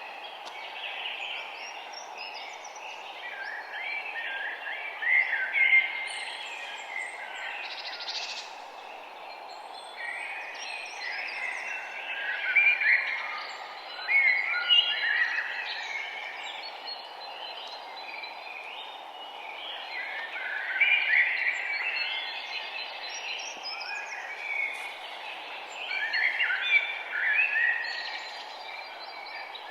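Several songbirds chirping and singing at once, in overlapping bursts that swell every few seconds, over a steady background hiss.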